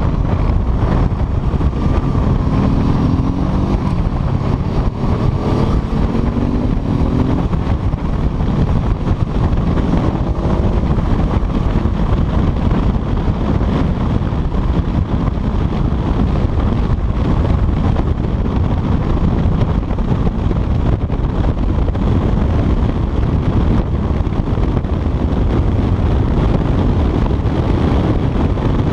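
Heavy wind noise on a chest-mounted camera while riding a Honda CBR sport motorcycle at speed. The engine can be heard rising in pitch as it accelerates, twice in the first dozen seconds.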